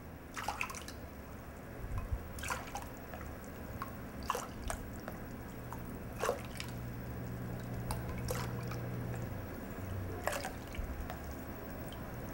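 Ladlefuls of water poured one after another from a stainless ladle into a glass mixing bowl of soup base, a short splash about every two seconds.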